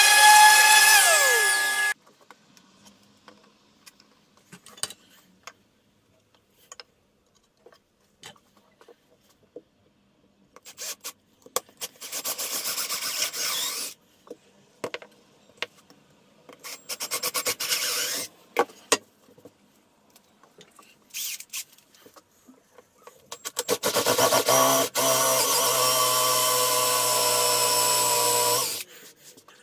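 An orbital sander running with a high whine, cut off sharply about two seconds in. After scattered clicks of handling, a cordless drill bores into wood in short bursts, then in one longer steady run near the end.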